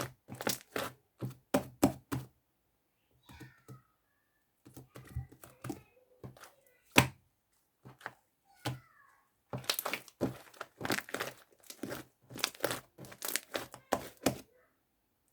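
Sticky, fluffy clay slime being pressed and squished by hand, giving runs of quick wet clicks and pops. The clicks bunch together at the start and again over the last few seconds, are sparser in the middle, and one sharper pop stands out about halfway through.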